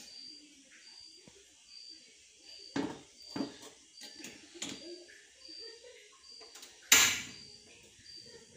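An aluminium kettle clunks a few times as it is set on the grate of a Rinnai gas stove. Just before seven seconds in, the burner lights with one loud sudden rush that fades quickly. A faint high chirp repeats about every half second throughout.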